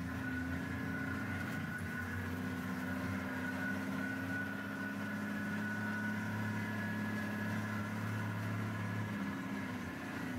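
Game-drive vehicle's engine running at low speed as it drives along a rough dirt track, its note shifting a little up and down.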